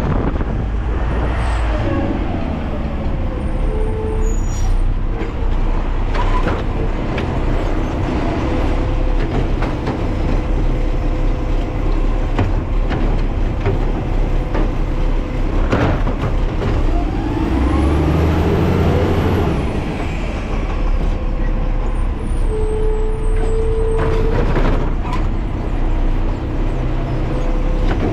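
Garbage truck running, its engine revving up and back down about two-thirds of the way in, with a few sharp knocks along the way.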